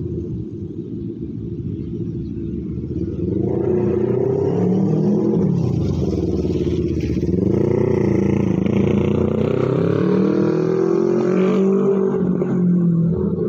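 Road traffic passing on a city street, with a motorcycle going by, swelling a few seconds in and easing off near the end. Slow ambient synth music runs underneath.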